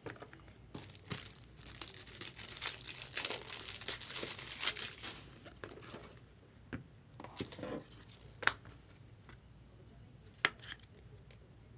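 Plastic crinkling and rustling as trading cards and their plastic sleeves and holders are handled, densest in the first half. This is followed by a few separate sharp clicks and taps as cards and holders are set down.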